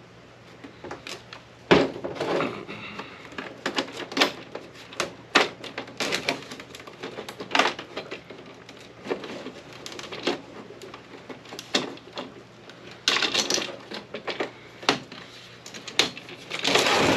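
Irregular clicks, knocks and scraping from the plastic case of an APC battery backup unit being handled and pulled apart by hand. A few louder scraping clatters come about two seconds in, around thirteen seconds and near the end.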